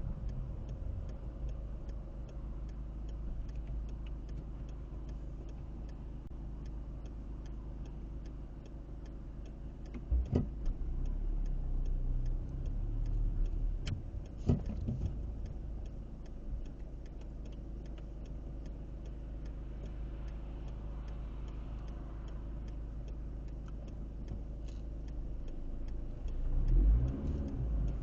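Car driving, heard from inside: a steady low rumble of engine and road noise with a faint regular ticking about three times a second. There are two short thumps about ten and fourteen seconds in, and the rumble swells near the end.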